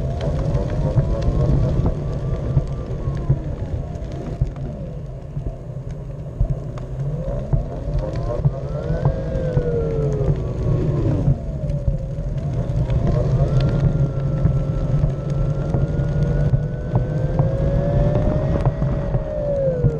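Radio-controlled car's motor whining, its pitch rising and falling again and again as it speeds up and slows down, over a steady rumble of small wheels rolling on concrete.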